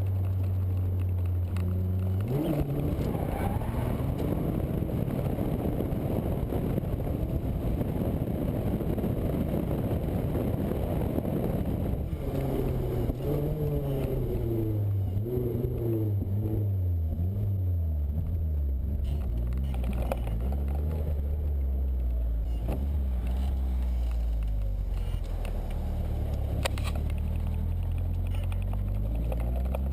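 Nissan S13 engine heard from inside the car, running steadily at low revs; about two seconds in the throttle opens hard and it runs loud and high for some ten seconds. The revs then fall away over several seconds and it settles back to a steady low running.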